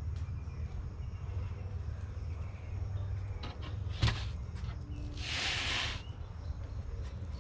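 Steady low rumble, with one sharp thump about four seconds in as a whole tilefish is set down on a fish-cleaning table, then a brief hiss about a second later.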